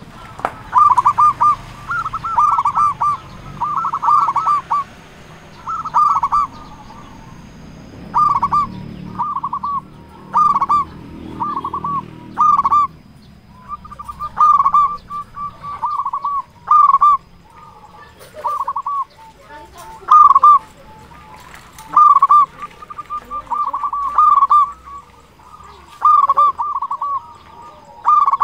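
Zebra dove (perkutut) cooing: short rolling coo phrases of two or three quick notes, repeated every second or two.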